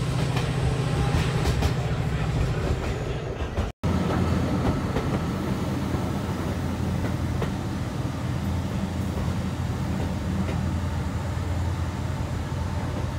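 Class 68 diesel locomotive's Caterpillar V16 engine running with a steady low drone, heard from inside a coach behind it, mixed with the clatter of wheels on rail. The sound cuts out for a split second about four seconds in.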